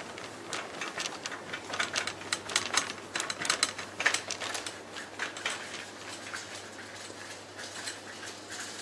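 Plastic shopping cart being pushed across a tiled supermarket floor, its wheels and basket rattling and clattering in quick, irregular clicks.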